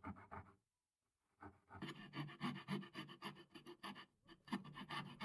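Coping saw cutting through wood by hand in quick rhythmic strokes, about four a second, broken by a moment of silence about half a second in.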